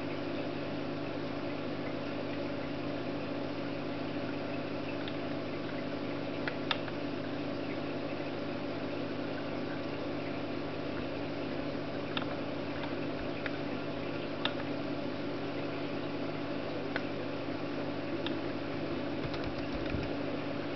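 Steady low hum of a running machine, with a few sharp, separate clicks of the Samsung NB30 netbook's touchpad buttons and keys as it is operated.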